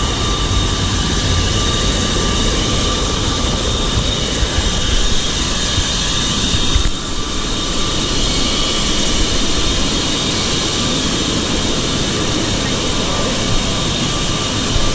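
Helicopter's turbine engine running at ground idle just after landing, a steady high whine over a rushing noise.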